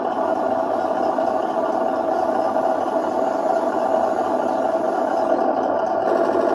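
A 1/16 Mato all-metal RC Tiger tank's sound unit plays a steady engine idle through the model's small speaker while the tank stands still.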